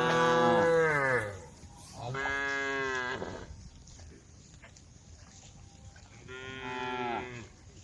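Cattle mooing: three long moos, the first one the loudest and falling in pitch.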